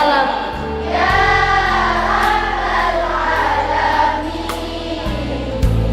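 A group of young pupils singing together over backing music with sustained low notes.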